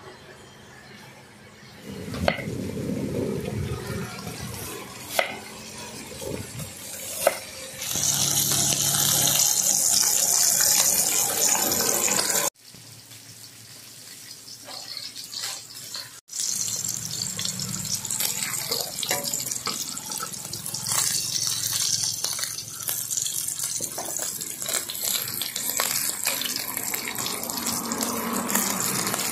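Pork slices sizzling as they fry in oil in a metal wok, with a few sharp clinks of a metal spatula against the pan in the first seconds.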